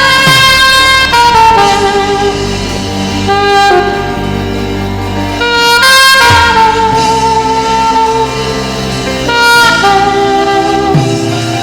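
Saxophone playing a melody of long held notes over a band accompaniment with bass.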